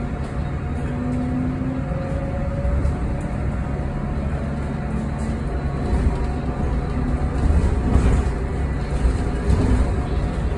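Cabin noise inside a moving Yutong ZK6128BEVG battery-electric bus: a low road and tyre rumble with faint steady whining tones from the electric drive. The rumble gets a little louder and bumpier from about six to ten seconds in.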